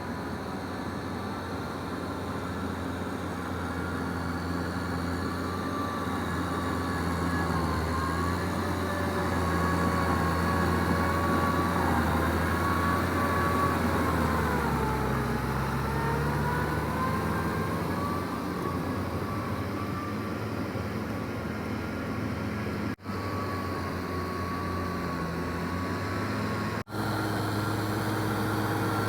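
Kubota M6040SU tractor's four-cylinder diesel engine running under load while ploughing, with a whine above the engine note. The engine note sags about halfway through and picks up again. The sound breaks off for an instant twice near the end.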